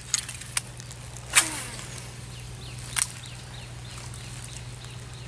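A few sharp clicks and knocks, the loudest about a second and a half in with a short ringing tail, over a steady low hum. Faint short chirps come after it.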